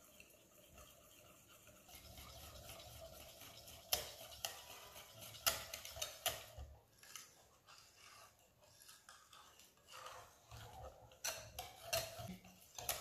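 Wire whisk beating crepe batter in a glass bowl: a soft steady swishing from about two seconds in, with the wires clicking sharply against the glass again and again.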